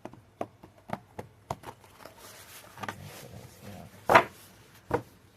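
Tarot cards being handled: a quick run of light clicks and card snaps, a soft brushing hiss, then a loud sharp slap about four seconds in and a second one just before five seconds.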